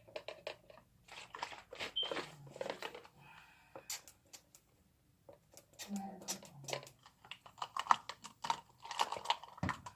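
Glue slime being mixed by hand with activator, giving irregular sticky clicking and crackling while the slime is still not coming together.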